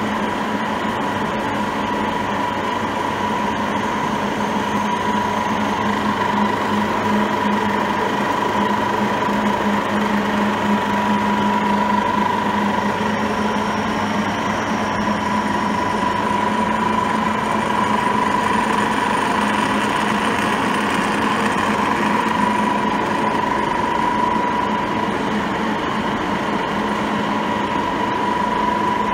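The powered-up WMW Heckert FQW 400 T NC CNC milling machine running: a steady electric machine hum with a high, even whine over it and no change in speed.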